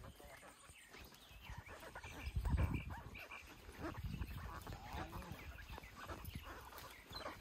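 Faint animal calls on a farm, with a louder low rumble about two and a half seconds in.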